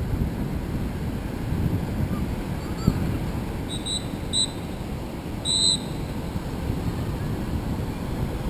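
Wind rumbling on the microphone over the wash of surf. Between about four and six seconds in come three short, high-pitched chirps.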